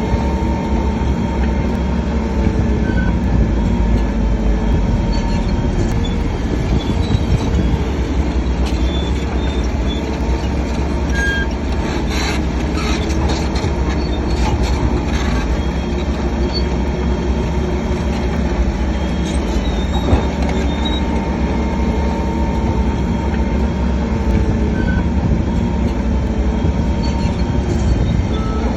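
Crawler bulldozer working: a steady diesel engine rumble with squeaking and clanking from the steel tracks, the squeaks busiest about halfway through.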